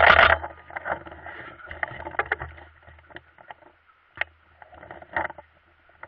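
Handling noise on the camera's microphone: a cluster of loud knocks at the start, then scattered clicks and rustling over a low rumble that fades away.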